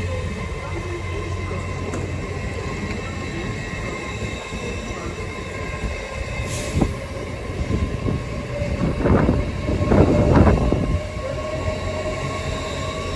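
LNER Azuma electric multiple unit passing slowly through the station with a steady whine. About nine to eleven seconds in, its wheels clatter loudly over rail joints and points.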